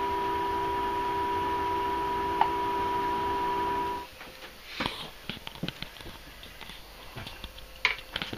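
A steady machine hum with two constant tones that cuts off abruptly about four seconds in, followed by faint scattered clicks and taps from a fishing reel being handled.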